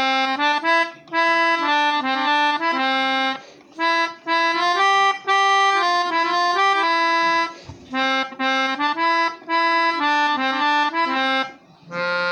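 Keyboard melodica played through its long mouthpiece tube: a simple nursery-rhyme melody, one note at a time, in short phrases with brief pauses between them.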